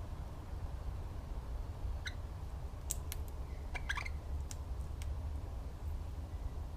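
Birds giving a few short, sharp chips and clicks between about two and five seconds in, over a steady low rumble.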